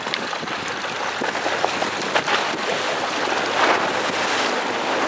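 Wind buffeting the microphone over the rush and splash of choppy sea water past a small boat: a steady noise with a few sharp crackles, swelling briefly about three and a half seconds in.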